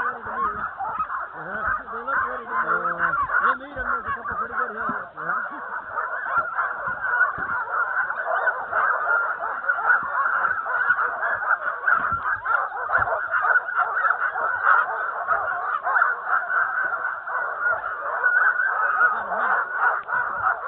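A harnessed sled dog team barking and yelping in a continuous, overlapping chorus: the excited din of dogs straining to run at a race start.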